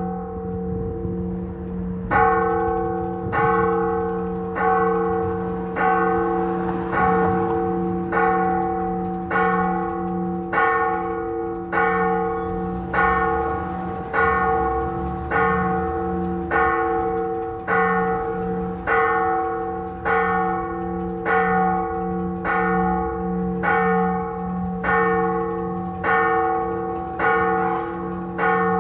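Church tower bell tolling: single even strokes about every 1.2 seconds after a short pause at the start, each stroke ringing on into the next. It is the third call to mass (tercera llamada).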